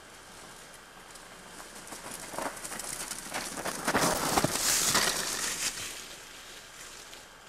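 Mountain bike riding past on a dirt forest trail: tyres rolling over dirt and twigs with a few knocks. It grows louder, is loudest about four to five seconds in as it passes close, then fades.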